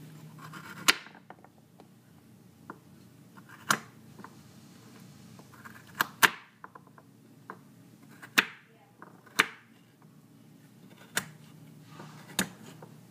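Kitchen knife cutting baby carrots on a wooden cutting board: about eight sharp knocks of the blade meeting the board, irregularly spaced a second or two apart.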